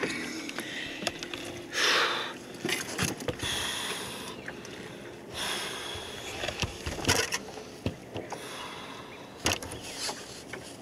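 Choppy lake water lapping and splashing against the hull of a small boat in irregular swells, with scattered sharp knocks and rustles as a small black bass and the tackle are handled.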